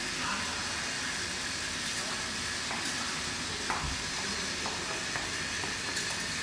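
Lip balm filling and capping machine line running: a steady hiss with a few faint clicks as the conveyor carries the tube holders along.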